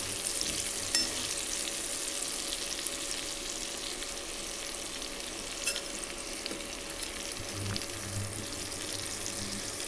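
Stuffed bitter gourds sizzling steadily in hot mustard oil in a kadhai as a steel ladle turns them over, with a couple of light knocks of the ladle against the pan.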